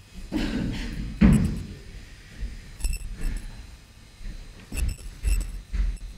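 Wooden chairs knocking and thudding on a stage floor as they are handled and set down. The loudest thud comes just over a second in, followed by several lighter knocks.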